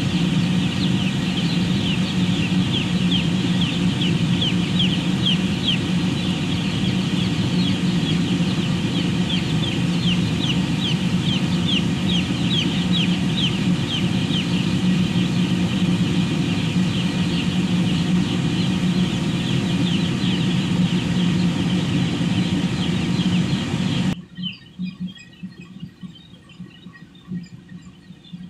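A flock of broiler chickens peeping continuously in many short falling peeps, over the loud, steady hum of a machine. The machine cuts off abruptly near the end, leaving the peeping alone.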